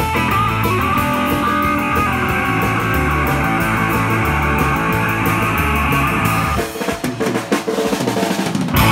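Rock band playing live: distorted single-pickup electric guitar over a drum kit. About six and a half seconds in the guitar drops out and the drums play on alone in a break, ending on a loud hit.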